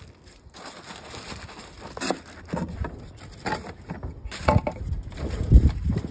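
Thin wooden boards being set down onto crumpled aluminium foil, paper and sawdust in a metal fire pit: irregular wooden knocks and clatter mixed with foil crinkling and rustling, with a heavier thump near the end.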